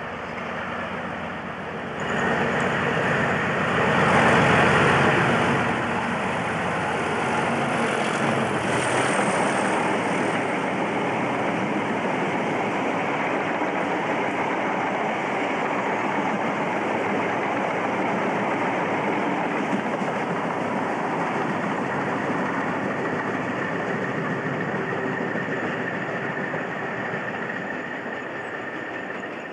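British Rail Class 37 diesel locomotive hauling a freight train past, its engine loudest a few seconds in. A long rake of wagons then rumbles and clatters steadily over the rails.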